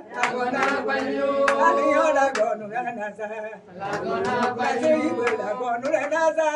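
An elderly woman singing a praise song unaccompanied, other voices singing along with her.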